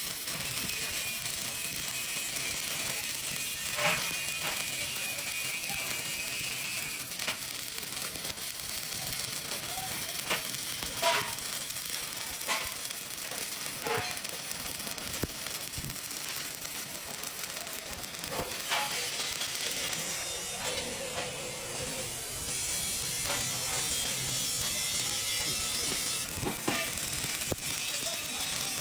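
TIG welding arc: a steady high hiss with scattered sharp clicks.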